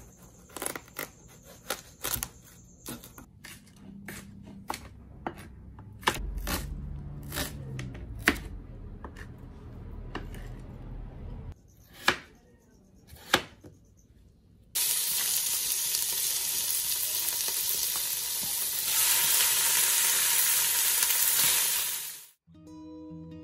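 Knife cutting through watermelon and then slicing a green vegetable, knocking on a cutting board in a string of sharp clicks, two of them loud about 12 and 13 seconds in. About 15 seconds in, food begins sizzling as it fries in hot oil, a steady hiss that cuts off suddenly near the end.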